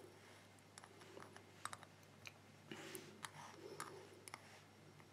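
Faint, irregular small clicks of metal tweezers tapping against brass lock pins and springs in a pin tray.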